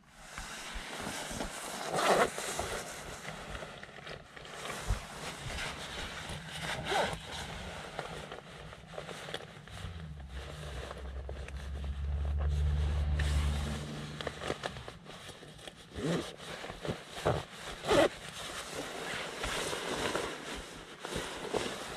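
Rustling and scraping of a padded jacket and seat fabric as someone shifts about in a car seat, with a few sharp knocks and bumps. A low hum comes in about ten seconds in and fades out some four seconds later.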